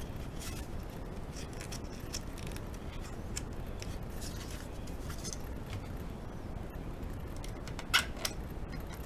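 Light clicks and short scrapes of small hand-held work, with a sharp snip-like click about eight seconds in and a fainter one just after, over a steady low background hum.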